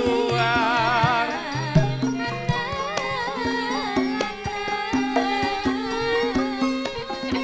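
Javanese gamelan music for tayub: struck metallophone and gong tones held under regular hand-drum (kendang) strokes, with a sung vocal line wavering in wide vibrato over it, most prominent in the first couple of seconds.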